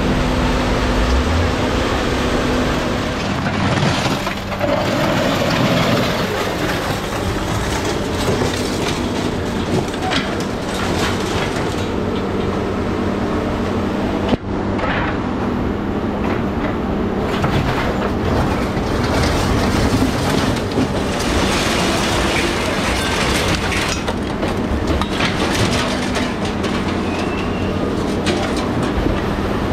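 Scrap-handling machine with an orange-peel grapple working: a steady engine and hydraulic drone, with scrap metal clattering and scraping.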